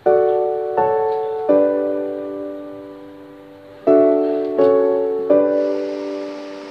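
Background piano music: slow chords struck one after another, each left to ring and fade, with a longer held chord in the middle.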